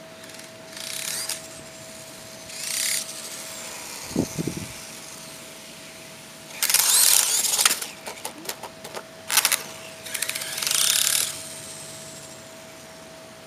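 Traxxas 1/16 Mini E-Revo electric RC truck revved in about five short bursts, its motor and drivetrain whirring, with a run of quick clicks just after the loudest burst and a low thump around a third of the way in. The clicking from the rear under acceleration persists after a new rear bulkhead and skidplate.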